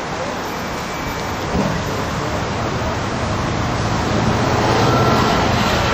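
Street traffic noise, a steady rumbling wash of passing cars, swelling louder over the last couple of seconds as a car pulls in close.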